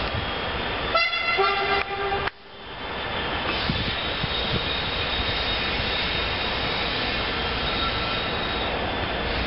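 Steady rumble of a train, with a two-note train horn blast about a second in, a higher note then a lower one, lasting just over a second. The sound cuts out abruptly as the horn ends and swells back within about half a second.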